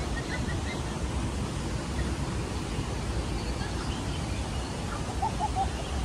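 Steady rushing outdoor background noise with a deep rumble, with a few faint bird chirps near the start and a quick run of three chirps near the end.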